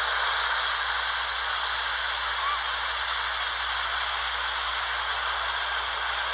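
Steady, even static hiss, like white noise, that starts and cuts off abruptly.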